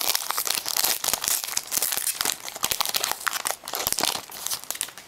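Foil wrapper of an SP football trading-card pack being torn open and crinkled by hand: a dense, crackling rustle that stops near the end.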